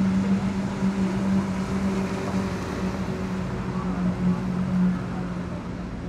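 Boat engine running with a steady low hum over general outdoor noise, easing slightly near the end.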